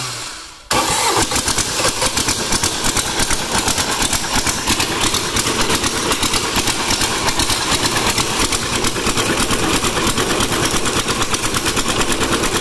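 Small diesel engine in a Sears Suburban garden tractor running on its first start after glowing, a fast, even clatter of firing strokes. It dips in level briefly right at the start, then runs steadily.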